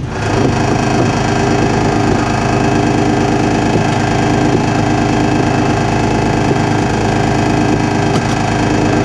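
Engine of a construction ride vehicle running steadily at a constant speed.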